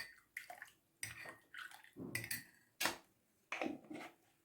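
A metal teaspoon clinking against a cup, a string of light clinks about half a second apart, some with a short ring, as honey is stirred into the tea.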